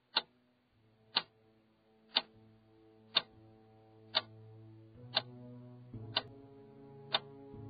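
Clock-tick sound effect marking a countdown, one sharp tick each second, eight in all, over a soft sustained musical chord that comes in about a second in and slowly swells, shifting to new notes around five and six seconds in.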